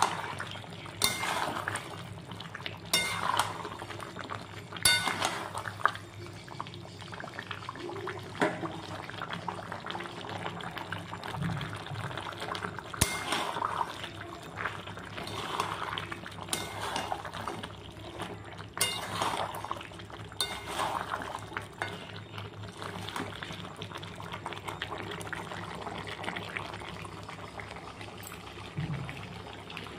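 Metal spatula stirring chicken and potatoes in a steel kadai, scraping and clinking against the pan at irregular intervals, over the steady sizzle of the frying.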